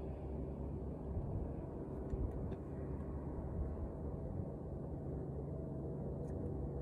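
A steady low rumble with faint steady hum tones in it, and a few faint ticks about two seconds in and again near the end.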